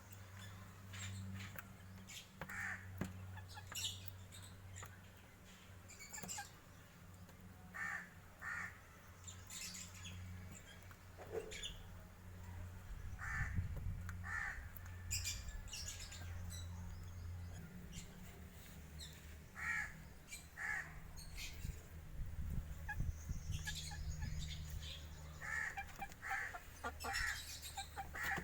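Chickens clucking and calling in short, separate notes over a steady low hum.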